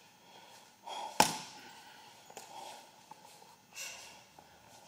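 A gloved punch landing once on a hanging heavy bag, about a second in, a short sharp smack. Otherwise only faint room noise.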